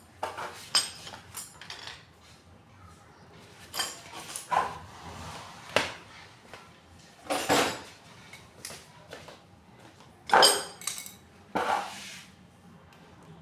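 Metal tools and pump parts clinking and knocking together as they are handled during a water pump bearing and seal replacement, about ten separate strikes, some with a short ring.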